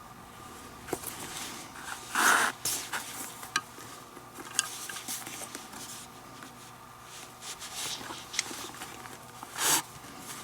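Leather lace being pulled through the lacing holes of a baseball glove, with scraping rubs. There are two louder pulls, one about two seconds in and one near the end, and light ticks and taps between them.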